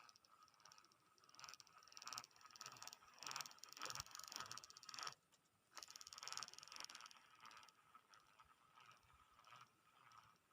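Fishing reel being wound in, a faint fast ticking whir that comes in spurts and stops briefly about five seconds in.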